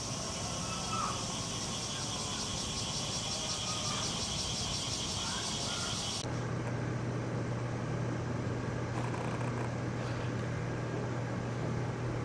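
Cicadas droning in a dense, pulsing chorus, cut off abruptly about six seconds in and replaced by a steady low hum.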